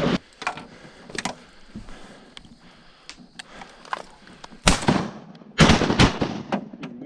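Shotgun blasts fired at a passing duck: three or four loud shots close together about five to six seconds in, after a few fainter knocks early on.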